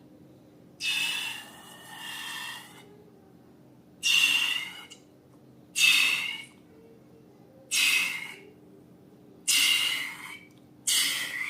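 Air rushing out of balloon necks in about seven short hissing squeals, each lasting about a second, with brief pauses between.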